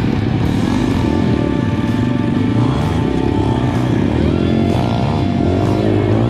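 Pit bike engine running steadily while being ridden along a dirt trail, with background music mixed in.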